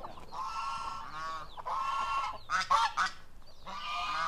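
Domestic white geese honking, a series of about five calls, with a harsher, louder burst about two and a half seconds in.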